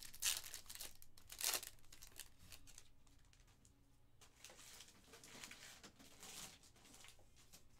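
A foil trading-card pack (2022 Panini Contenders Football) being torn open and crinkled, with two sharp rips in the first two seconds. A few seconds later comes softer rustling as the cards are handled.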